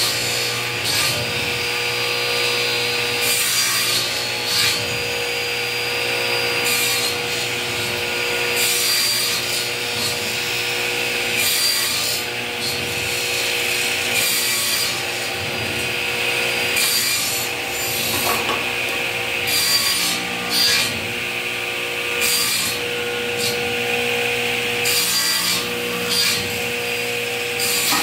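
Sliding table saw running steadily, its blade taking repeated short cuts into MDF every second or two as the pinned panel is turned into it to trim a round tabletop.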